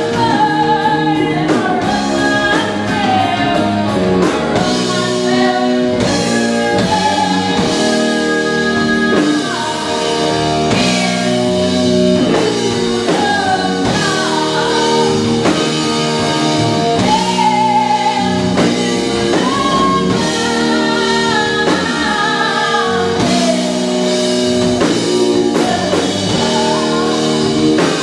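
Live rock band playing: a woman singing lead over two electric guitars and a drum kit.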